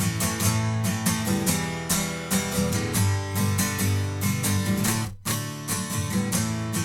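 A pair of acoustic guitars strumming chords in a recorded chorus, played back through a Z&H Designs V250 parametric EQ with the top end boosted for a bright, clean sound. The strumming pauses for an instant a little past five seconds in.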